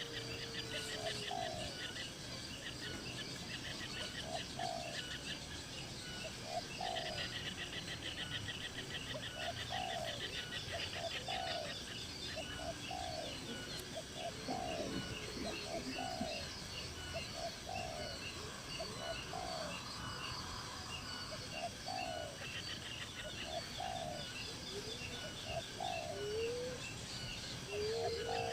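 Birds calling: short falling notes repeated about once a second, with a longer arched call at the start and again near the end, over a steady high pulsed trill.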